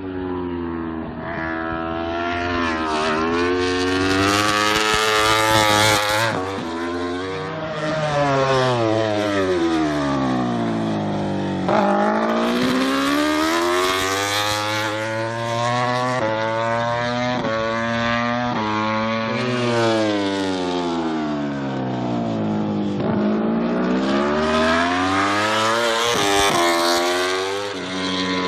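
Aprilia RS-GP MotoGP bike's V4 engine at racing speed, climbing sharply in pitch through quick upshifts, then falling on braking and downshifts, several times over as it laps the circuit.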